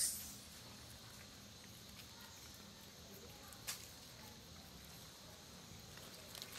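Faint outdoor ambience around a troop of long-tailed macaques feeding on bananas. A sharp snap or smack comes right at the start and a smaller one about three and a half seconds in.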